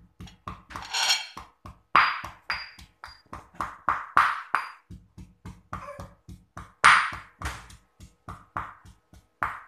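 Stone pestle pounding in a black stone mortar (lesung batu), crushing dried anchovies, shrimp paste, garlic, shallots and chillies. Irregular dull thuds come about two to three a second, some with a brief high stony ring.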